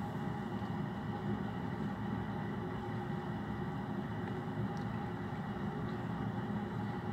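Steady mechanical hum and hiss, with several unchanging tones in it.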